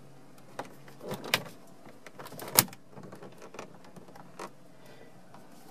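Plastic dash trim clicking and snapping as a plastic panel pry tool works under its lower end to release the trim clips: a handful of sharp clicks, the loudest about two and a half seconds in, over a faint steady hum.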